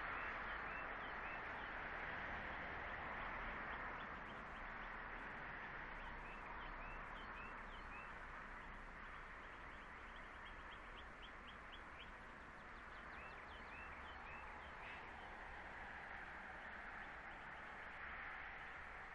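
Steady outdoor hiss with small birds chirping now and then and a short rapid trill partway through.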